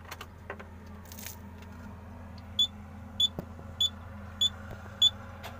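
A truck dashboard warning buzzer beeps five times, each beep short and high and about 0.6 s apart, over a steady low hum.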